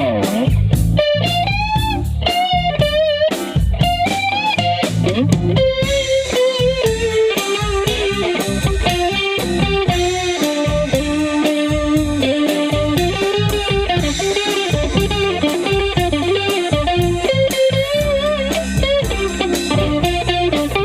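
Electric guitar playing a lead melody with string bends and vibrato over a low, steady rhythm backing.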